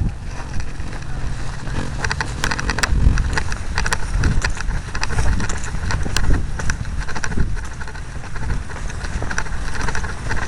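Onboard-camera audio from an RC model airplane: steady low rumble of wind buffeting on the microphone, with a faint motor hum in the first few seconds and scattered sharp clicks and rattles.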